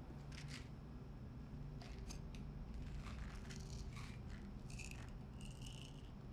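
Tissue being handled: short, crisp crinkles and rustles, with a couple of faint squeaks near the end, over a low steady room hum.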